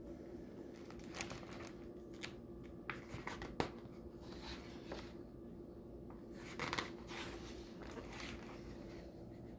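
Pages of a hardcover picture book being turned by hand: soft paper rustles and light taps, the fullest swish about two-thirds of the way in, over a faint steady hum.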